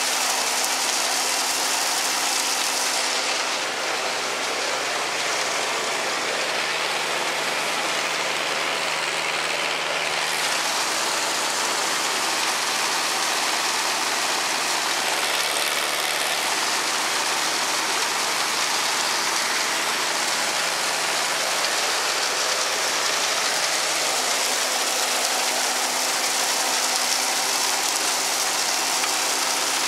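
Silage blower running steadily while a forage wagon unloads chopped corn into its hopper: a steady machine hum under a continuous hiss of falling silage.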